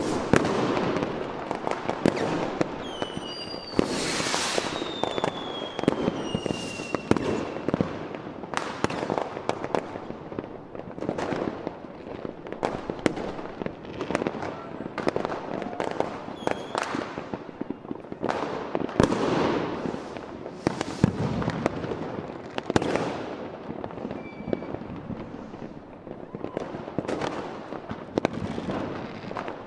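Fireworks display: a continuous, rapid series of bangs and crackles from bursting aerial shells, with a few whistles falling in pitch a few seconds in.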